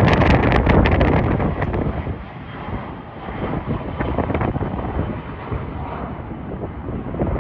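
Jet airliner engine noise mixed with strong wind gusts buffeting the microphone, loudest over the first two seconds, then easing.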